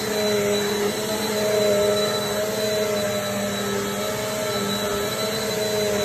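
Eureka corded upright vacuum cleaner running on carpet: a steady motor hum and whine over rushing air, with the pitch wavering slightly as it is pushed back and forth.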